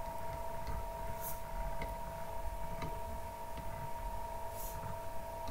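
Steady background noise of the recording: a constant two-tone whine over a low rumble, with a few faint clicks and two brief high hisses.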